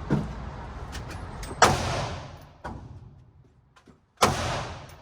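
Two loud gunshots about two and a half seconds apart, each trailing off in a short echo, with a fainter sharp knock right at the start.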